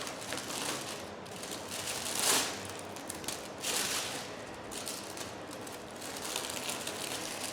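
Plastic cover film on a sticky diamond painting canvas crinkling and crackling as it is handled and peeled, with louder crackles a little over two seconds in and again near four seconds.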